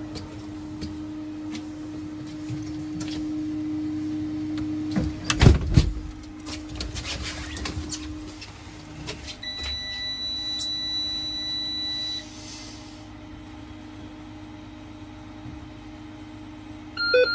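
School bus dashboard warning buzzer sounding a steady electronic tone for about two and a half seconds, then a short beep near the end, as the ignition is switched on before starting. A few knocks and bangs come about five seconds in, over a steady low hum.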